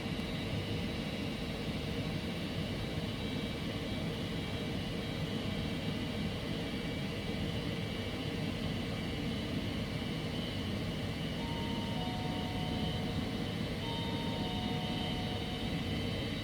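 Steady rumbling noise throughout. About two-thirds of the way in, a faint two-note tone, high then lower, sounds, and it comes again near the end.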